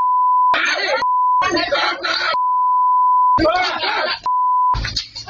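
A steady one-tone censor bleep cuts in four times, alternating with men's raised voices in a heated argument.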